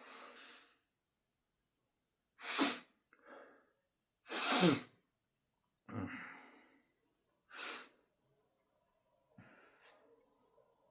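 A man sneezing, induced by tickling inside his nose with a bobby pin: three short, sharp sneezes a few seconds apart, the middle one loudest and voiced. Each is followed by a softer breath out.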